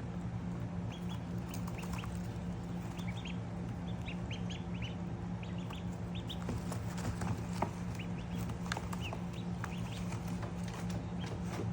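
Ducklings peeping: many short, high chirps, scattered and overlapping, over a steady low hum.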